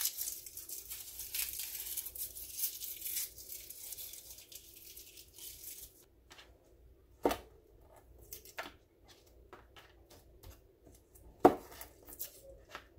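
Papery garlic skins crackling and tearing as cloves are peeled by hand and knife, for about the first six seconds. After that, a few separate sharp knife strikes on a plastic cutting board as the cloves are trimmed, the loudest two about a second after the peeling stops and near the end.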